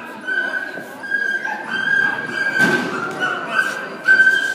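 A dog giving a run of high-pitched, drawn-out yelps, about two a second, typical of an excited dog at an agility run. A brief dull thump comes about two and a half seconds in.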